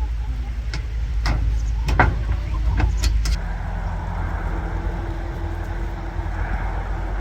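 Low rumble of a running engine. Several sharp clicks and knocks come in the first three seconds, then it settles into a steadier hum that cuts off suddenly at the end.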